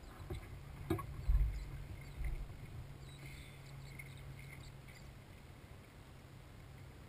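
Kayak on the water: a few sharp knocks in the first second, then light water ticks and drips from the hull and paddle over a faint steady low hum. About a second in, a brief low rumble, typical of wind or handling on the camera's microphone.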